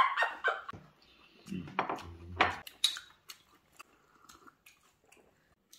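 Eating at a table: chewing with a brief low voice sound, and a few sharp clicks of tableware about two and a half and three seconds in, then only faint ticks.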